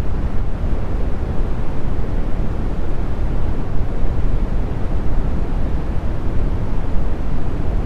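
Steady brown noise: an even, deep rumble of hiss, strongest in the bass and falling away toward the treble, without change or events.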